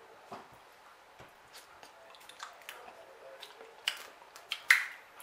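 Eating sounds: wet, squishy chewing and small clicks and crackles of snow crab shell being peeled, with two sharper clicks about four and five seconds in.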